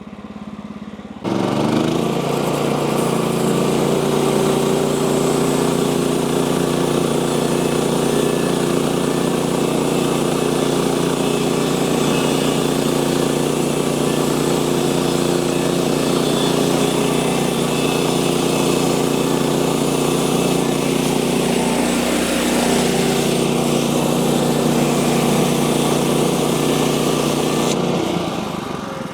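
A sawmill's engine running steadily, kicking in abruptly about a second in and dying away near the end.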